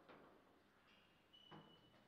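Near silence with two faint knocks about a second and a half apart: the foosball tapping against the plastic players on the table. A faint thin high tone runs through the second half.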